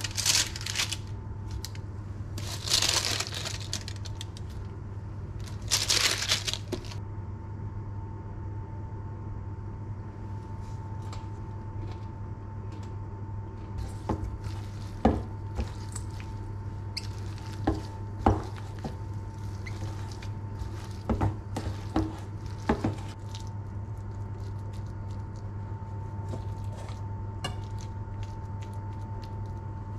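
Roasted potatoes being handled off a parchment-lined baking tray, with three loud rustles of the paper in the first seven seconds. After that, metal tongs tap, clink and scrape against a steel mixing bowl and a plate as the potatoes are tossed in a creamy dressing and served. A steady low hum runs underneath.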